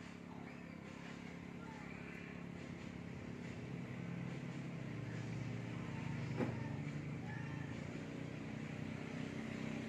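An engine droning steadily and slowly growing louder, with one sharp click about six seconds in.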